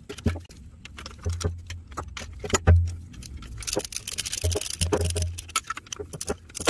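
Socket ratchet clicking in quick runs as a mounting bolt of a new mechanical fuel pump is tightened, with a few dull bumps of tool and hands.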